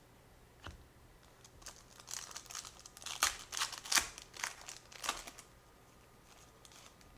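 Foil trading-card pack wrapper being torn open and crinkled by hand, a few seconds of crackling strongest in the middle, after a soft tick near the start.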